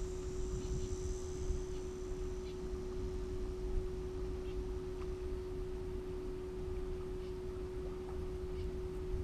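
A small electric motor on a bass boat hums one steady tone, over a low rumble of wind on the microphone, with a few faint ticks.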